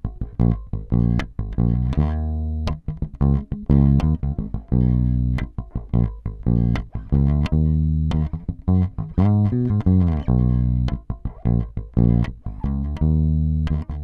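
Fender Deluxe Active Precision Bass Special played fingerstyle: a steady run of plucked bass notes, with the split-coil P-bass neck pickup and J-bass bridge pickup blended evenly and the bass, mid and treble controls set to the middle.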